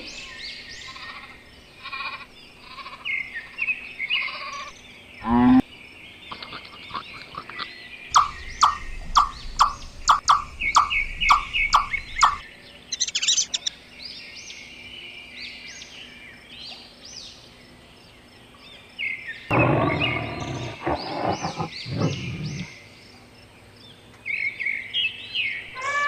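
Birds chirping, with a run of about nine short, evenly spaced calls in the middle and a louder, lower-pitched animal call lasting a couple of seconds near the end.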